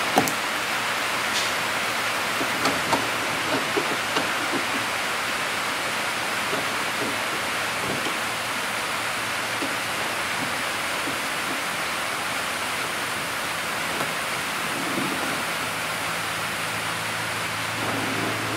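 Steady hiss of rain falling, even and unbroken, with a few light taps in the first few seconds.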